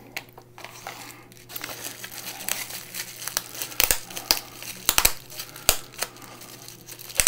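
Plastic bubble wrap crinkling and crackling as it is handled and peeled open by hand, with a few sharper, louder crackles in the second half.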